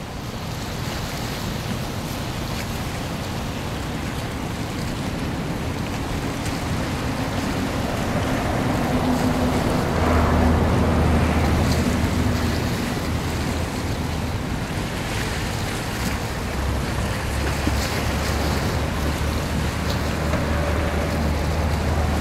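Jet engine noise of an Airbus A320 on final approach: a steady rushing sound that grows louder as the airliner nears. From about ten seconds in, a deeper steady rumble joins it.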